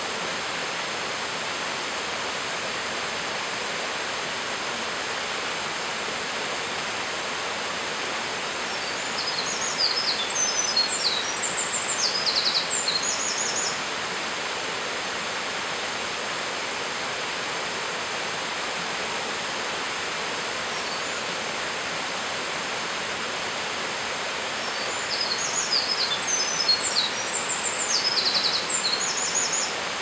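Eurasian wren singing two long, rapid songs of high trills and notes, each about four seconds long, the first about nine seconds in and the second near the end. Beneath them runs the steady rush of a mountain stream and waterfall.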